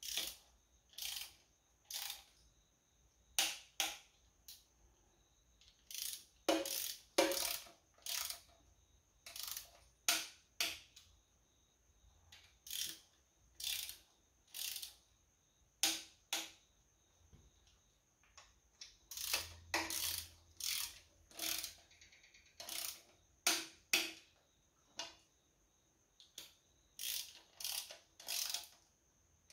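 Ratchet-head torque wrench clicking in short runs of separate clicks as the sump bolts of a Holden 253 V8 are run down and tightened, set to about 10 newton metres over a cork sump gasket.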